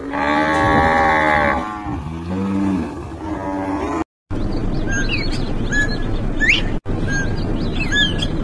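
Highland cattle mooing: one long, loud call, then a lower second call. After a sudden break, short high chirps from a small bird sound over a steady hiss.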